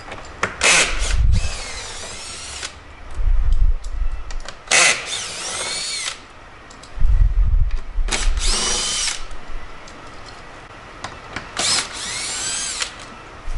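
Cordless drill/driver with a half-inch socket backing bolts out of a sleeper sofa's back panel: four short runs, each a whine that rises and falls in pitch, with low knocks between them.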